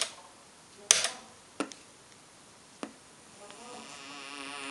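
Three single key clicks on a Commodore 64 keyboard while a cartridge image is launched from a menu. About three and a half seconds in, SID-chip game music with wavering notes starts faintly and grows louder.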